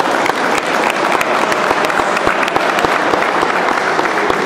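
Audience applauding, a steady dense patter of clapping hands that swells slightly in the middle and eases near the end.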